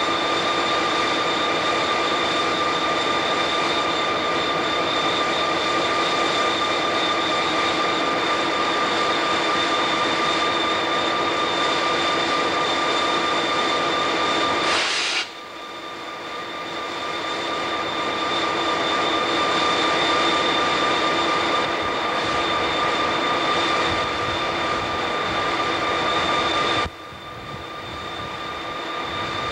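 Steady drone of diesel locomotives running, a rumble with a steady whine over it. It cuts off abruptly twice and builds back up each time.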